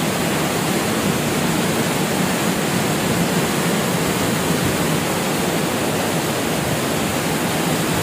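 Waterfall cascading over rocks, heard close up: a steady, loud rush of falling water.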